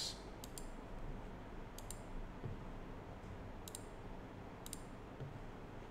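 Computer mouse button clicking, four times, each a quick press-and-release pair of clicks, as items are picked from drop-down menus.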